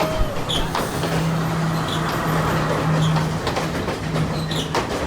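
Passenger train arriving at a station: the steady low drone of a diesel locomotive, with rail and wheel noise and scattered clicks.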